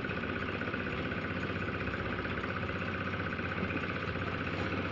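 An engine running steadily at an even speed, with a fast regular pulse in its sound.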